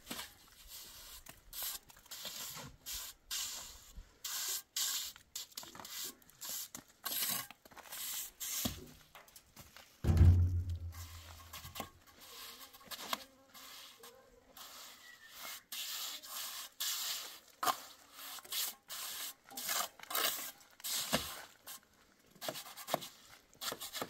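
Irregular scraping and rubbing strokes, short and uneven, with one heavy low thump about ten seconds in.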